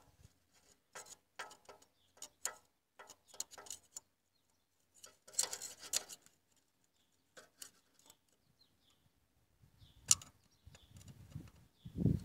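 Irregular light metallic clicks and short scrapes of a caliper being worked against injector rocker arms and springs, with a low rubbing noise starting near the end.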